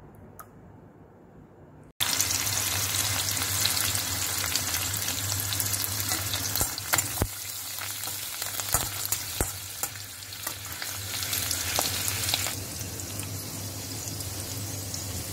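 Tempering for rasam: mustard seeds, cumin seeds, curry leaves and coriander leaves sizzling in hot ghee in a pan, stirred, with scattered sharp pops. The sizzle starts suddenly about two seconds in and eases slightly near the end.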